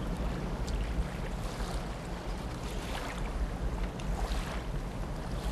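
Steady wind rumbling on the microphone over a faint wash of sea water along the shore.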